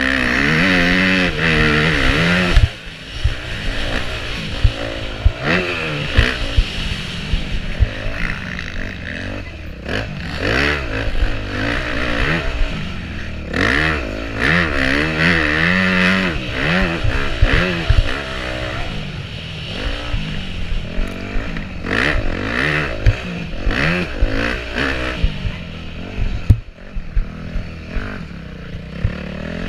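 Motocross bike engine revving up and down again and again as the rider opens and shuts the throttle around the track, heard from the rider's helmet. Frequent sharp knocks run through it.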